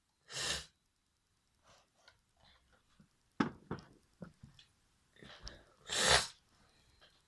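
Two short, forceful breathy bursts from a person, one about half a second in and a louder one about six seconds in, with a few sharp clicks and small breaths between them.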